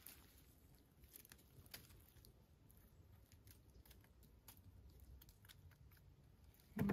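Faint, scattered small clicks and crunches of hedgehog mushrooms being trimmed with a knife and handled on the forest floor.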